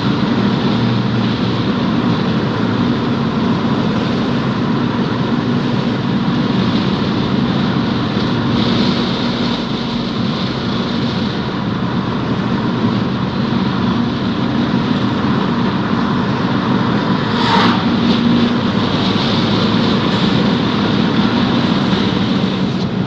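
Fiat 500 Abarth's 1.4-litre turbocharged four-cylinder running steadily at cruise under wind and road noise. About 17 seconds in, a brief, sharply rising turbo whistle cuts through.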